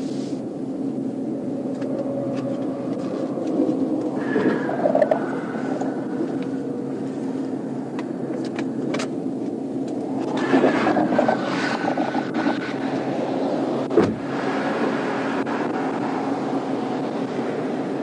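Steady hum of an idling car, heard through a police dashcam. Louder muffled stretches come about four seconds in and again about ten seconds in, and there is a single sharp thump about fourteen seconds in.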